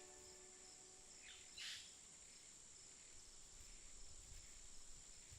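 Faint forest ambience, close to silence, with a short bird call of two quick downward-sweeping chirps about a second and a half in.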